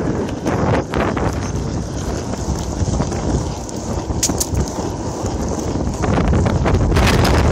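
Longboard's urethane wheels rolling over pavement while the rider pumps, with wind buffeting the camera's microphone. A few sharp clicks, the clearest about four seconds in.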